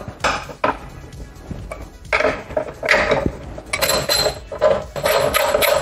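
Scattered metal clinks and knocks as motorcycle front-end parts are handled, including the front brake caliper being worked free of the fork.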